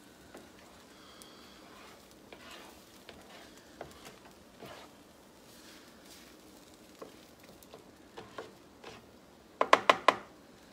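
Scrambled eggs sizzling faintly on a stovetop griddle while a spatula stirs and scrapes them, with small scattered scrapes and clicks. Near the end comes a quick run of about five loud, sharp, ringing taps: the spatula knocked against the pan.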